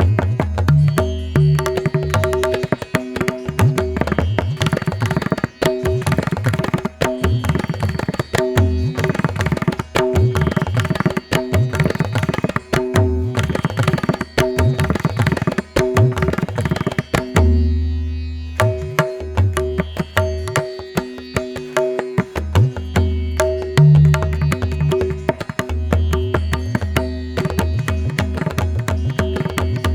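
Instrumental music with a steady held drone, quick hand-drum strokes and low booming drum notes, in an Indian classical style.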